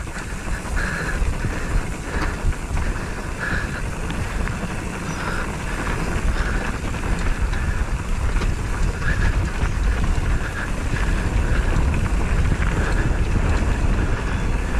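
Steady rush of wind and vehicle travel noise on a moving point-of-view camera, heaviest in the low end.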